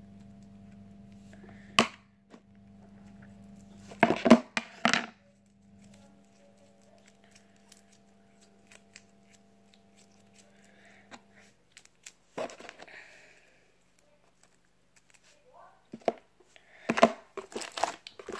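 Homemade glue slime being stretched, pulled and squished by hand, giving scattered sharp pops and cracks, the loudest cluster about four seconds in and more near the end. A steady low hum runs underneath and stops about eleven seconds in.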